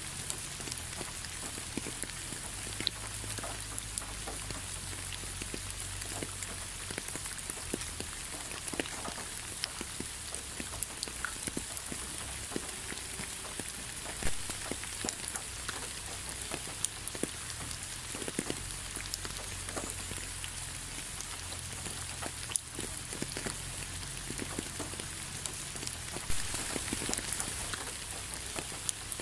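Steady rain falling: an even hiss with many scattered drops tapping, and a few single drops louder than the rest.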